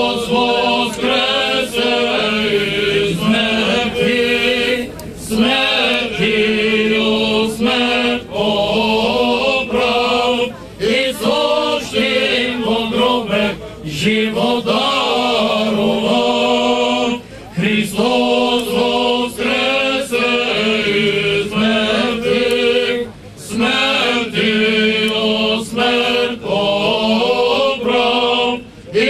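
Eastern Orthodox liturgical chant sung by a choir during a water-blessing service, in melodic phrases over a low note held steadily underneath.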